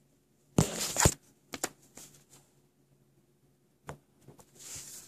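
Handling noise: a short, loud rustle about half a second in, a few light clicks, and a softer rustle near the end.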